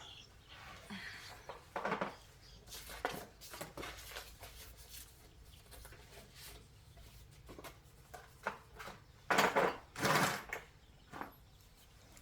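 Workshop handling noises: scattered light clicks and knocks, with two louder scraping clatters about nine and ten seconds in.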